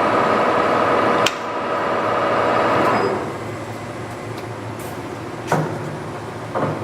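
TOS SN50C lathe's geared headstock running with a steady gear whine. There is a click about a second in, then the whine dies away about three seconds in, leaving a low hum. Two sharp clicks come near the end.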